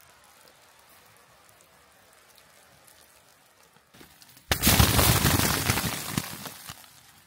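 A few seconds of faint background, then, about four and a half seconds in, a sudden loud rush of crackling and pattering that fades over about two seconds: wet snow and meltwater coming down on the snow-laden fly of a Lunar Solo ultralight tent, heard from inside the tent.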